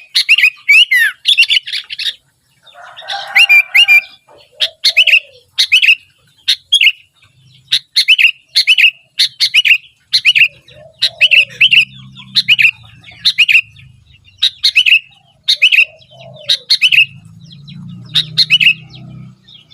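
Sooty-headed bulbul singing over and over: short, bright chirping phrases about once a second, busiest near the start.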